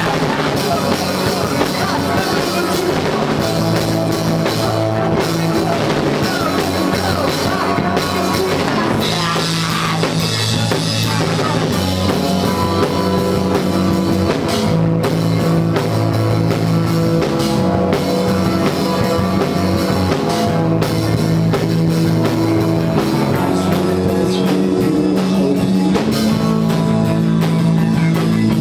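Rock band playing live: drum kit, guitars and bass in a full, loud, continuous song.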